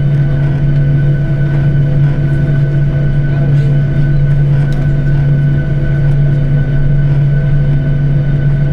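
Airliner's jet engines heard from inside the passenger cabin, with takeoff imminent: a loud, steady low hum with a fainter steady high whine above it.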